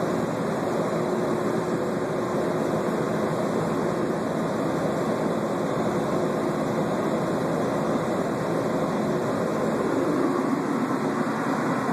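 Steady running noise of a Newark AirTrain monorail car moving along its guideway, heard from inside the car.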